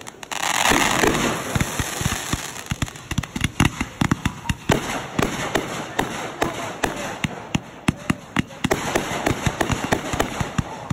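Backyard consumer fireworks going off: a hissing rush about a second in, then a dense, rapid run of sharp pops and crackles from the bursting aerial shells, dozens of cracks in quick succession.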